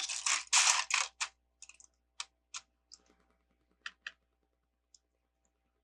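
Loose plastic LEGO bricks rattling and shuffling for about a second, then a scattering of separate light clicks as single pieces are handled.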